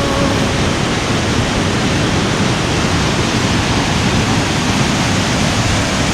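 Waterfall rushing steadily into a rock pool: an even, loud wash of falling water with no breaks.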